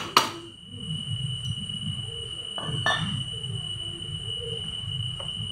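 A hammer strikes the motorbike engine's cylinder once just after the start, the last of a run of blows to knock the cylinder block loose. Light metallic clicks follow about two and a half to three seconds in, over a steady high-pitched whine and a low background rumble.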